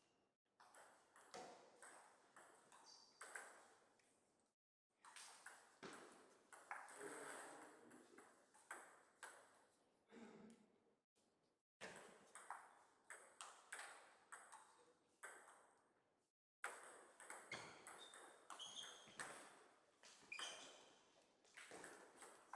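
Table tennis ball clicking back and forth off the bats and the DONIC table in rallies, with short pauses between points.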